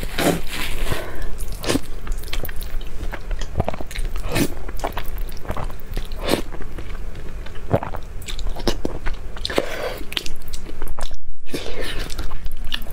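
Close-miked slurping and chewing of saucy instant noodles, with wet mouth smacks and clicks at irregular intervals. A brief silence about eleven seconds in.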